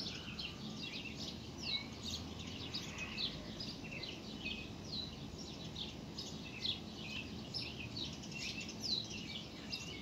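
Small songbirds chirping, many short, quick down-slurred chirps overlapping, over a low steady background rumble.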